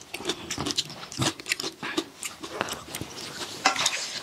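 Close-miked chewing and lip-smacking of a mouthful of fried rice, in quick, irregular wet clicks.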